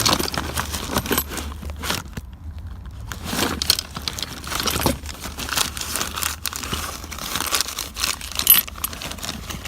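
Parts packaging being handled: irregular rustling and crinkling with small clicks and clatter, over a steady low hum.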